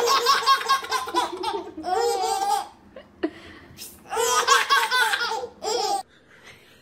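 A baby laughing in high-pitched, pulsing belly laughs, four bouts with short pauses between them.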